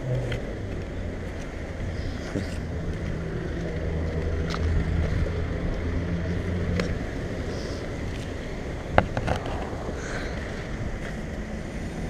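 Fujitsu ductless mini-split outdoor condenser units running with a steady low hum that swells for a few seconds in the middle. A sharp click comes about nine seconds in.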